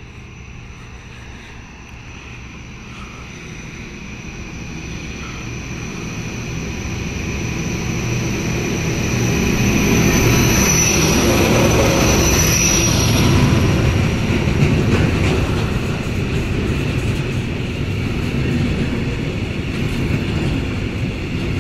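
Freight train of tank wagons hauled by two class 1275 diesel locomotives rolling through. It grows steadily louder to a peak about halfway through, with a steady high-pitched squeal over the rumble.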